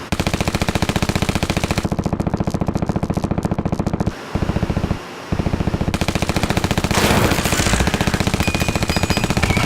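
Sustained rapid automatic gunfire, a fast even stream of shots with two brief breaks about four and five seconds in.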